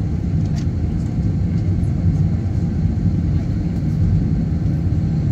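Steady low drone inside the cabin of an Airbus A321 parked at the gate, a constant rumble with a low hum.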